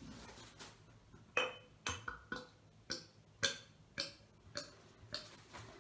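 Beer glugging out of a 0.5-litre glass bottle as it is poured into a glass mug. About ten short, ringing glugs, roughly two a second, start about a second in and grow fainter toward the end.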